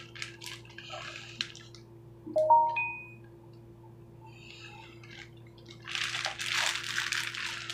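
A clear plastic zip-top bag with a little water in it being twisted and handled. It crinkles faintly at first and then crackles loudly through the last couple of seconds. About two and a half seconds in there is a short squeaky chirp that steps up in pitch.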